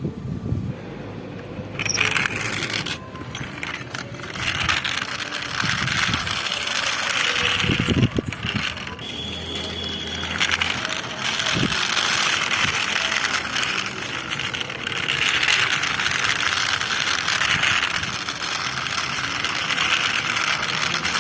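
Plastic toy vehicles rolling and rattling over a surface: a swelling scraping hiss with scattered sharp clicks and knocks.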